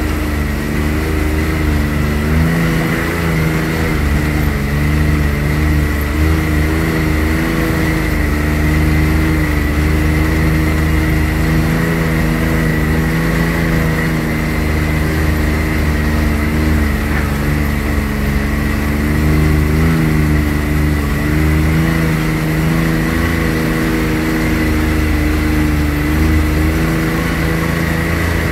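Can-Am X3 Turbo R side-by-side's turbocharged three-cylinder engine running steadily as it drives along a dirt trail. Its note wavers slightly in pitch, with a steady high whine above it.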